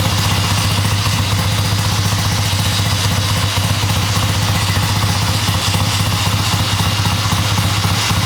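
1969 Triumph Bonneville T120R's 650 cc air-cooled parallel-twin engine running steadily just after being started, with enough oil pressure to put the warning light out.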